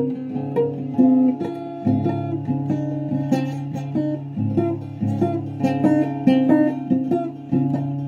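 Acoustic guitar played with a steady run of strummed and picked chords.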